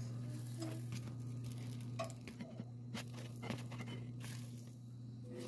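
Irregular clicks and taps of a kitchen utensil stirring in a bowl, over a steady low hum.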